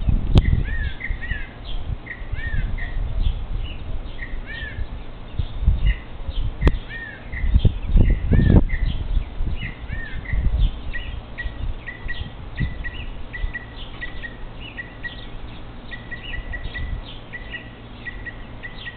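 Small songbirds chirping, with many short, curving chirp notes. About halfway through they change to a quick series of short repeated notes. A low rumble sits underneath, loudest a little before the middle.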